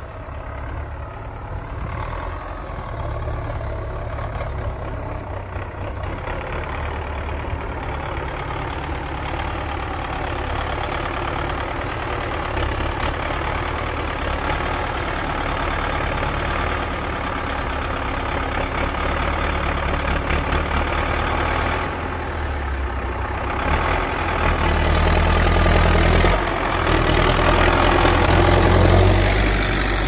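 Belarus 820 tractor's four-cylinder diesel engine working steadily under load as it pulls a plough through the soil. It grows louder as the tractor approaches and is loudest in the last few seconds as it passes close by.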